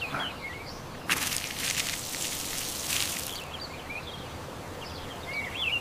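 Cartoon garden ambience of small birds chirping faintly, with a burst of crackling hiss lasting about two seconds, starting about a second in.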